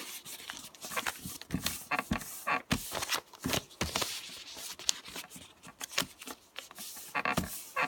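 Sheet of paper being folded and creased by hand, with irregular crinkling and sharp crackles of the paper.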